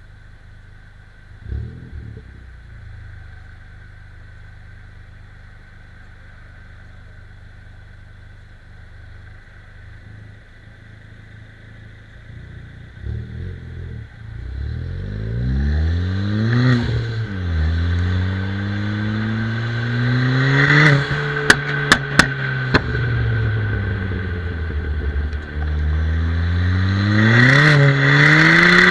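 Tuned Ford Fiesta ST engine idling quietly with a brief blip of the throttle, then accelerating hard: revs climb, drop at a gear change and climb again. On lift-off there are a few sharp pops and bangs from the exhaust, and near the end it revs up once more with more pops.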